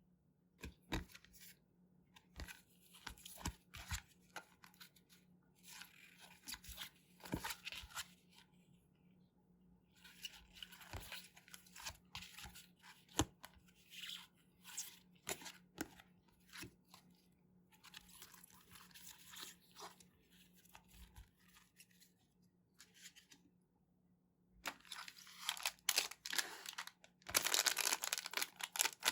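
Surprise packets of trading cards being torn open, their wrappers crinkling, with scattered clicks and rustles of handling. The crinkling grows louder and denser over the last few seconds.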